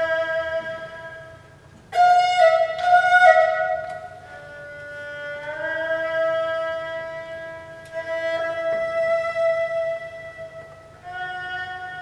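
Solo erhu, a two-string Chinese fiddle, being bowed. A loud, sudden accented entry about two seconds in runs through a few quick notes. The pitch then slides up into a long held note, and a new phrase starts near the end.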